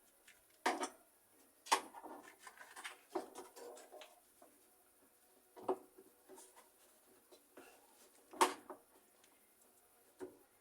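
Hand tools clicking and knocking against the plastic and metal parts of a washing machine being dismantled: separate sharp knocks every one to three seconds with brief rattling between, the loudest about eight seconds in.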